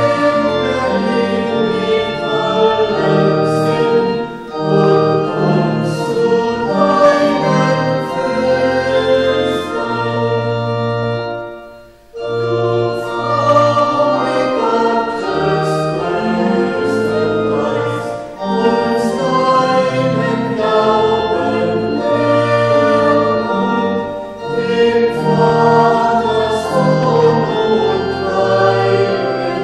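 Voices singing a Marian hymn in strophes with instrumental accompaniment, pausing briefly about twelve seconds in between lines.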